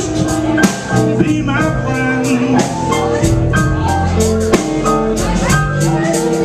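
Live blues band playing: electric guitar, electric bass, drum kit and keyboard, with a steady beat.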